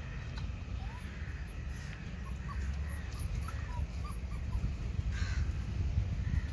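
Crows cawing twice, over a steady low rumble and short faint chirps.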